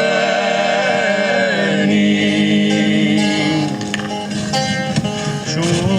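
A song sung in Sardinian: a voice holding long, wavering notes over a steady instrumental accompaniment.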